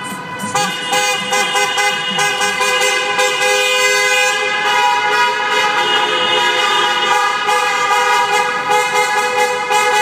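Many car horns honking at once in an underpass: several held tones at different pitches overlap and continue without a break.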